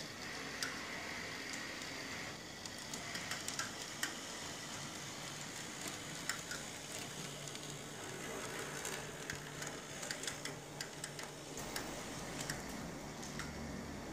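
Model Peter Witt streetcar running on its track: a steady hissing whir from the small motor and wheels, with many irregular sharp clicks and ticks as it rolls over the rails. A low hum joins about three-quarters of the way through.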